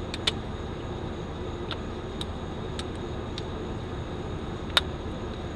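Hand work at a car's carburetor: about seven scattered sharp metal clicks and taps over a steady low hum.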